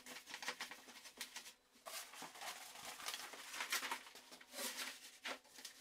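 Sheet of lining paper rustling and crinkling in irregular bursts as it is unrolled and spread by hand over a workbench top.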